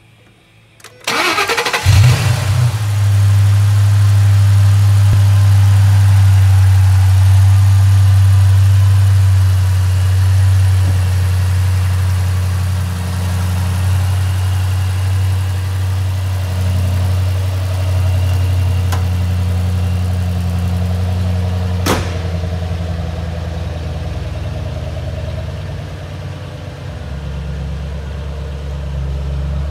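2008 Ford Shelby GT500's supercharged 5.4-litre V8 cranking briefly and catching with a burst of revs about two seconds in, then idling steadily, its drone shifting lower near the end. A single sharp click about 22 seconds in.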